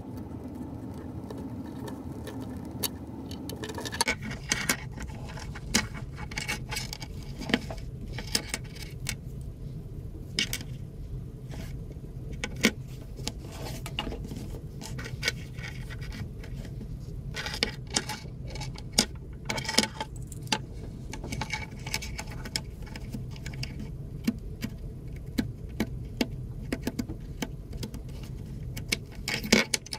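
Small irregular clicks, scrapes and taps of a pointed hand tool picking at the leather and old stitching of a belt's buckle end, with the metal buckle now and then clinking, over a steady low hum.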